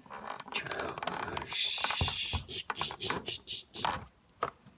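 Plastic Play-Doh custard-machine toy being worked by hand: a quick run of small plastic clicks and scraping as the dough is pressed through, easing off near the end.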